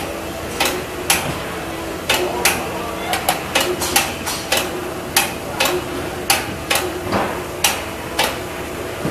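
Sharp knocks repeating unevenly, about two a second, over a steady machine hum.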